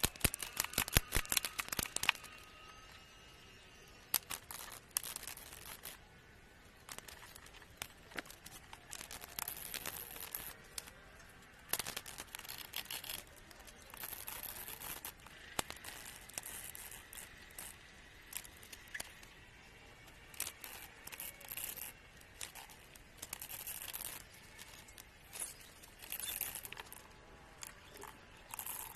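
Packaging being handled and torn open, rustling and crinkling in irregular bursts, after a quick run of sharp clicks in the first two seconds.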